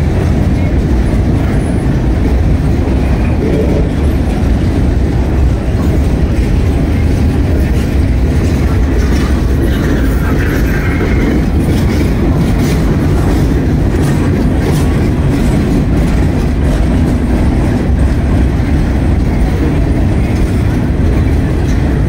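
Freight train boxcars rolling past: a loud, steady rumble of steel wheels on rail, with scattered clicks as the wheels pass over rail joints.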